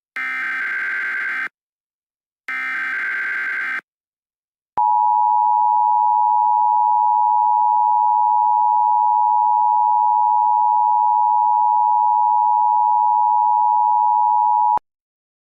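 Emergency Alert System broadcast tones: two short, harsh digital data bursts of the alert header, about a second apart, then the EAS attention signal, a steady two-tone beep held for about ten seconds that cuts off abruptly.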